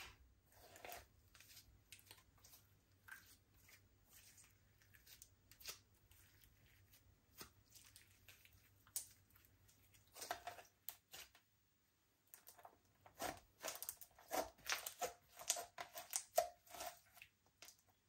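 Slime being kneaded and stretched by hand, giving soft, sticky clicks and crackles. They come scattered at first, then in busier runs in the second half.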